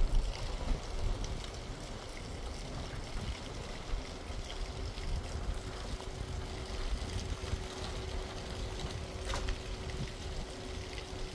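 Wind rumbling on the microphone outdoors, with a faint steady hum from about four seconds in and a single click near the end.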